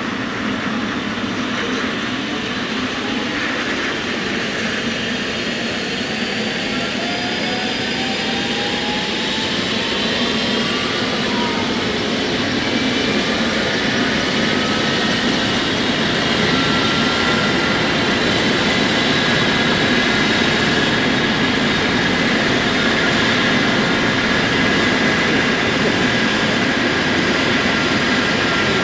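Trauma helicopter's turbine engines running, a whine rising in pitch over roughly ten seconds and then holding steady over a constant rushing noise.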